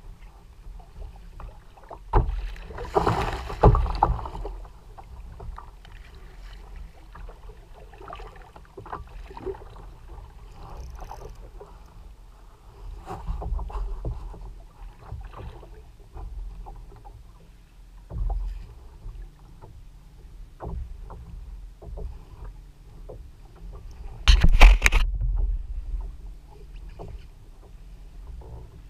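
Choppy sea water lapping and slapping against the hull of a plastic Hobie Revo 13 sit-on-top kayak, with a constant patter of small splashes. Louder splashes come about two to four seconds in and again about twenty-four seconds in.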